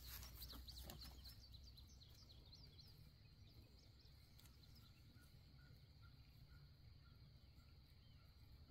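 Near silence outdoors: a faint, steady high insect drone, with a few faint bird chirps in the first few seconds and a faint chirp repeating about twice a second after that.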